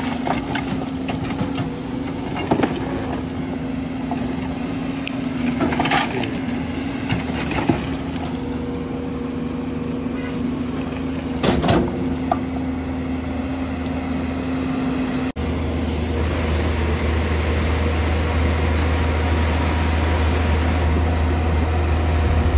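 JCB crawler excavator's diesel engine running steadily as its bucket digs into a mound of earth and stones, with clattering and scraping of rock every few seconds. After a brief dropout about two-thirds through, the engine is heard close up as a deeper, louder drone.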